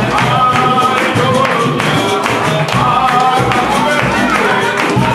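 Capoeira roda music: voices singing over a steady percussion beat, with hand claps from the circle.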